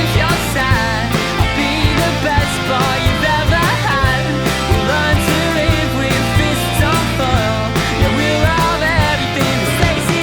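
Guitar-band rock music: electric guitars and drums playing at a steady beat, with a wavering melodic line on top.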